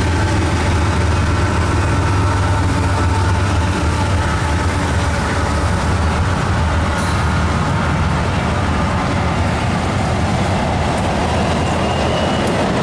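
GE diesel-electric freight locomotives passing close by under power: a steady low engine drone with a high whine that fades out within the first few seconds, and rail noise building toward the end.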